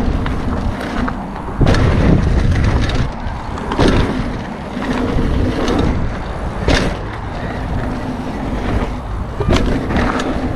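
A Canyon Stoic 2 29er hardtail mountain bike riding a line of dirt jumps: a steady rumble of tyres on packed dirt and rushing air, broken by four sharp thumps two to three seconds apart as the bike lands each jump.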